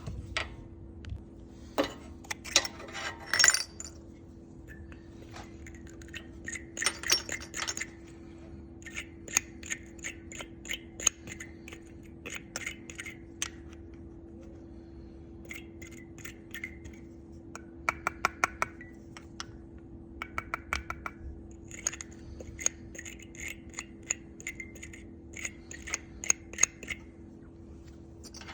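Metal hand tools clinking, with a socket ratchet clicking in short quick runs, on the go-kart's small engine while the spark plug is worked on.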